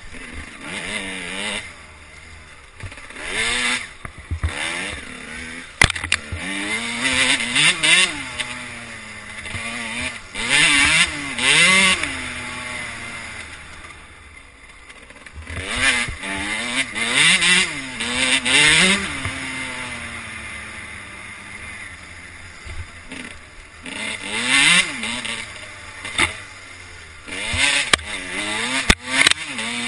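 Dirt bike engine revving up and down over and over as the throttle is opened and closed, heard from a mount on the bike, with loud rushing surges each time it opens up.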